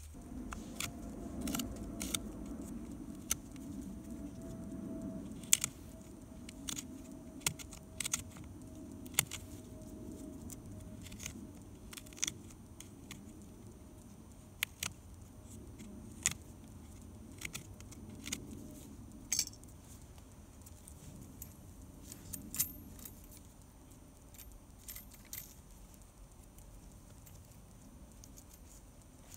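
Irregular sharp metallic clicks and clinks, roughly one every second or two, from a bucksaw's metal blade and hand tools being handled and knocked against green hemlock sticks as the saw frame is put together. A low, steady rumble sits underneath.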